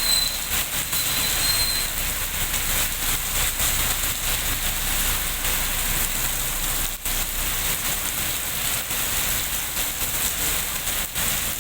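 Steady heavy rain: an even hiss with many small drop impacts throughout.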